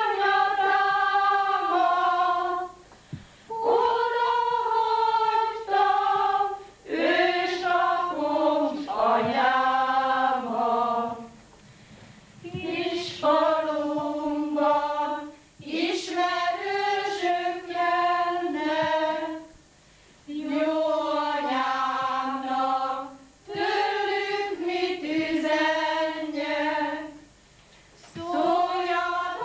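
A small group of women singing unaccompanied in unison, in phrases of a few seconds with short pauses between them.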